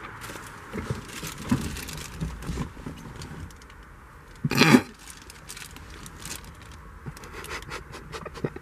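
A clear plastic bag holding a car-stereo wiring harness being handled and crinkled: small scratches and rustles, with one louder, brief noise about halfway through.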